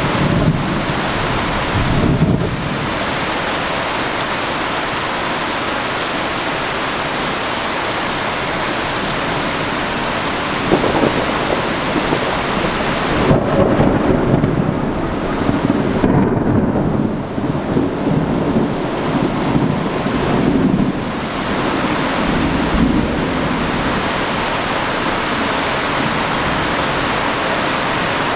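Steady heavy rain with rolling thunder. A rumble comes near the start, and a longer rolling peal begins about halfway through, swelling and fading over several seconds.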